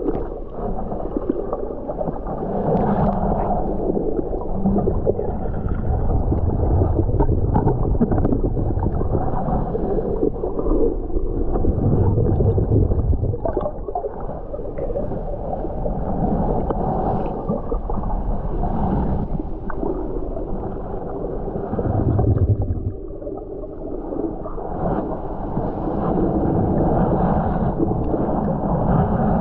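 Muffled underwater sound of a submerged action camera: steady low rumbling and gurgling water noise from the snorkeler moving through the weeds, with stronger low surges about twelve and twenty-two seconds in.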